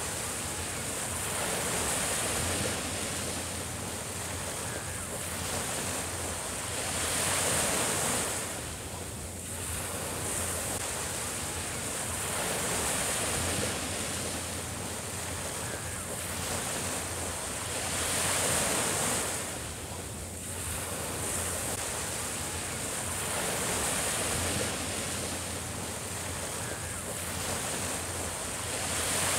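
Small Mediterranean waves breaking on a sandy beach and washing up the shore. The surf swells and fades about every five to six seconds.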